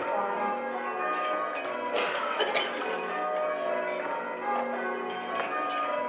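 Ring of six church bells, tenor 15 cwt in F-sharp, rung in changes: a steady even run of bell strikes, each ringing on into the next. One strike about two seconds in stands out loudest.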